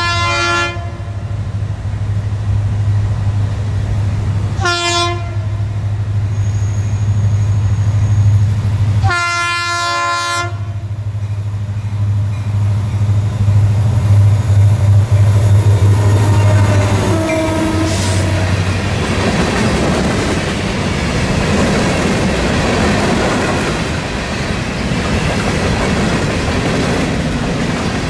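EMD GP40-2 diesel locomotive passing with its engine drone underneath. It sounds its multi-chime horn: the end of a blast, then a short blast about five seconds in and a long blast about nine seconds in, the close of the long-long-short-long grade-crossing signal. The engine fades after the locomotive goes by, and freight cars roll past with their wheels clacking over the rail joints.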